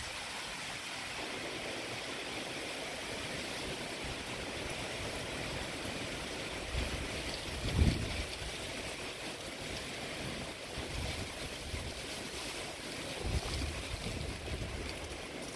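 Strong, gusty thunderstorm wind rushing steadily through trees and palm fronds, with gusts buffeting the microphone in short low bumps, loudest about halfway through and again near the end.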